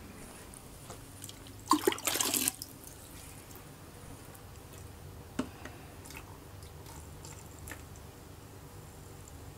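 Quiet dripping and trickling of RO water poured slowly from a plastic measuring jug into an aquarium to gently wet the dry substrate. A brief louder burst of noise comes about two seconds in.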